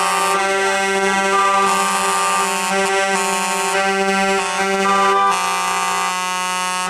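Several truck air horns blaring together. One low horn is held steady while others cut in and out every second or so, making shifting chords.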